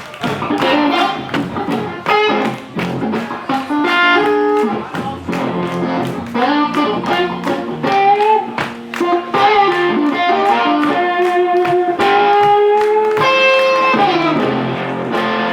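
Electric blues guitar playing an instrumental passage, with notes that glide and bend over a steady strummed rhythm.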